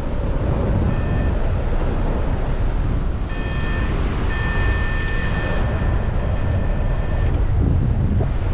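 Heavy wind rushing over the microphone, with a flight variometer sounding a steady high electronic tone: briefly about a second in, then again through the middle for about four seconds.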